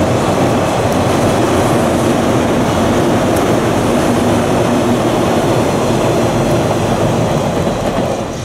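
JNR 583 series electric multiple unit running across a girder railway bridge: a loud, steady rumble of wheels on rail and bridge, dropping away near the end.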